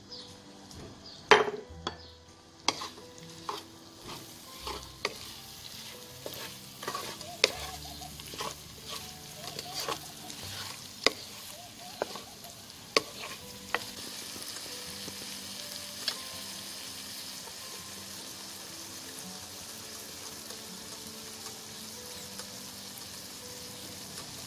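Prawns frying in a nonstick pan and being stirred with a wooden spatula: a run of sharp knocks and scrapes of the spatula against the pan through the first half, then a steady sizzle.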